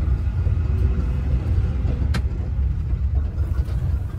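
Steady low rumble of a moving road vehicle heard from inside, with a single sharp click about two seconds in.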